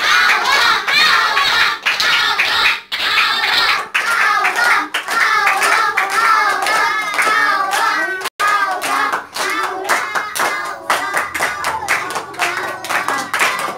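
Several children's high voices calling and singing over one another, with hand claps.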